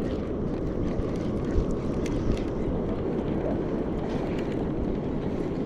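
Steady wind noise on the microphone, an even rushing that stays level throughout, on open water.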